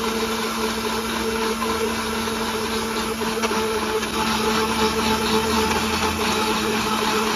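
Sujata mixer-grinder running steadily, blending mango pieces in liquid for a mango shake, with a constant motor hum under the churning of the jar.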